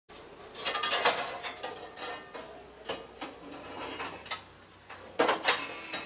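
Rusty scrap metal (old saw blades and steel rods) clanking and scraping as pieces are shifted and pulled from a pile by hand. Irregular clatters come about a second in, again around three and four seconds, and loudest in a quick pair near the end.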